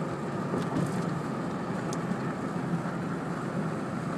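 Steady road and engine noise inside the cabin of a moving car, an even rumble with no sudden changes.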